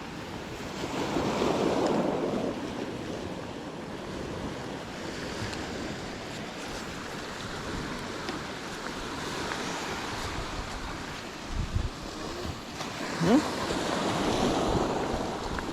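Sea waves washing and breaking, swelling up a second or two in and again near the end, with wind buffeting the microphone. About thirteen seconds in there is a brief rising squeak.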